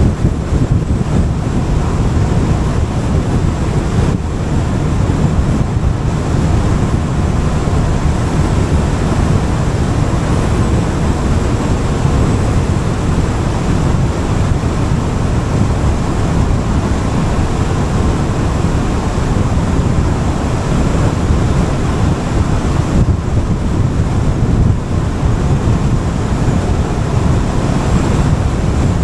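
Wind buffeting the microphone of a rider on a moving Gilera Fuoco three-wheeled scooter, over the scooter's engine and road noise: a loud, steady rushing rumble.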